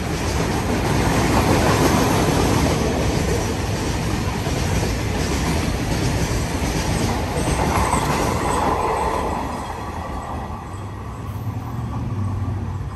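Freight train of covered cement hopper wagons rolling past, with a steady rumble and clatter of wheels on the rails. About ten seconds in, the sound drops to a quieter, lower hum as another freight train approaches from a distance.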